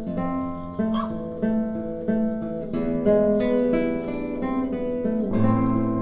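Background music: an instrumental piece on acoustic guitar, notes plucked in a steady rhythm.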